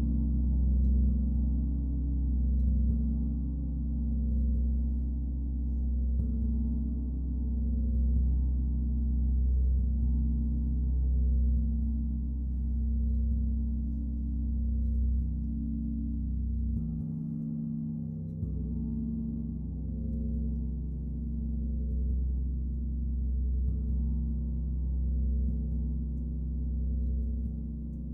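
Gong played softly in a sound journey: deep, sustained tones that swell and ebb about every two seconds, with a fresh soft stroke bringing in new tones a few times.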